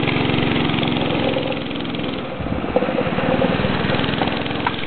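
Go-kart's small engine running with a fast, even putter. The level dips briefly about two seconds in, then picks up again.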